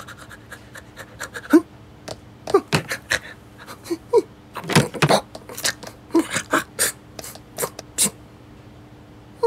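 Cartoon puppy sniffing and panting in quick irregular puffs, with snorts and a few short squeaky yips, as it noses at a covered litter box.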